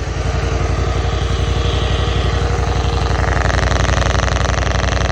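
Small lawn mower engine running steadily just after being started, with a rapid, even pulse. Mixed in is the buzz of its spark ignition picked up by an AM radio, used to trace a buried dog-fence wire.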